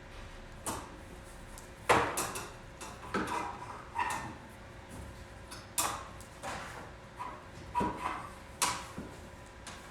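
A metal part of an Islandaire unit being slid back into place and fitted: irregular clunks, knocks and scrapes of metal on metal, the loudest about two seconds in.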